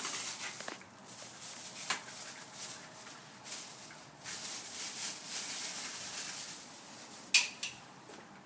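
Hands handling new spark plugs and their packaging: rustling that swells and fades, with a few light knocks and one sharp click near the end.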